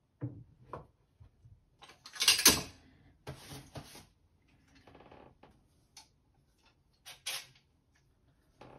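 Hand work with tools and materials: scattered light knocks and clicks. There is a louder, short rasping noise about two seconds in, and shorter ones at about four and seven seconds.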